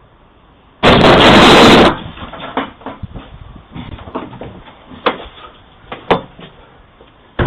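A sudden loud, harsh noise lasting about a second, overloading a doorbell camera's microphone, followed by several short sharp knocks.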